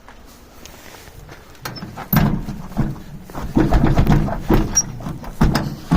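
A run of heavy, irregular thuds and knocks, starting about two seconds in.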